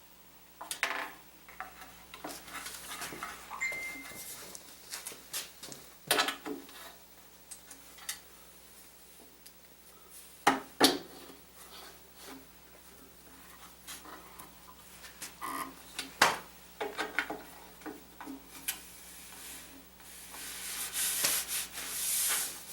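Hands working on a table saw's parts: scattered knocks and clinks of metal and wood, with rubbing and scraping in between, as the saw's throat insert is taken out.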